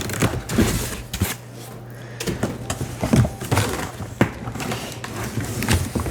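Advent calendar boxes and packaging being handled and fitted together: irregular knocks, taps and scrapes, over a steady low hum.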